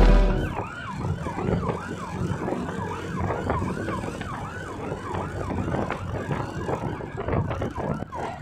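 Emergency-vehicle siren in a fast yelp, quick rising-and-falling sweeps about three times a second, over road noise from a moving motorbike.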